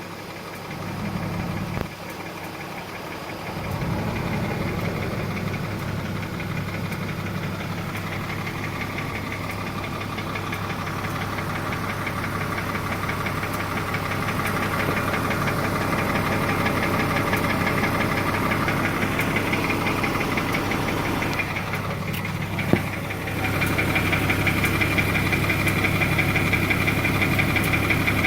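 BMW M54 straight-six running steadily with a rapid, even ticking-knocking from the top of the engine, which the owner first took for rod knock but most opinions put down to lifter (lifter carrier) noise. A single short thump comes a little after twenty seconds in.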